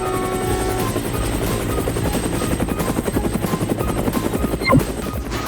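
A fast, even chopping beat like a helicopter rotor, played as a sound effect, with steady music tones over the first second. A short rising whistle-like sweep comes near the end.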